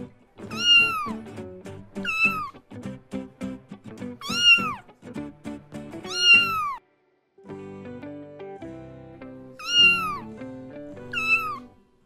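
Domestic cat meowing six times, each meow rising and then falling in pitch, over light background music of plucked notes.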